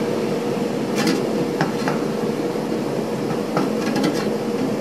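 Steady rushing of a gas stove burner heating a pot steamer of bakpao, with steam escaping through the slightly open lid. A few light metallic clicks sound over it, about a second in, again just before two seconds and near the end.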